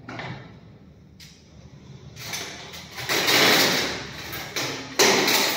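Green surgical cloth being pushed and rustled into a stainless-steel sterilization drum, rubbing and scraping against the metal. There is a short click about a second in, then louder uneven surges of rustling and scraping from about two seconds in.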